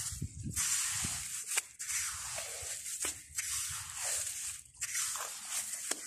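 Flat blade of a hand-pulled clam-finding tool scraping through wet beach sand in repeated strokes: a gritty hiss swelling and fading about every second and a half.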